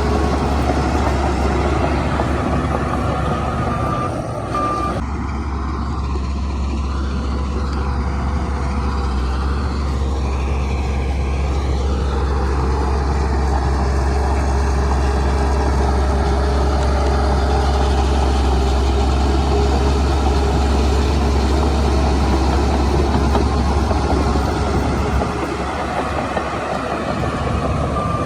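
Heavy diesel earthmoving machinery running steadily with a deep engine rumble. A couple of short high beeps, like a reversing alarm, sound about four seconds in and again near the end.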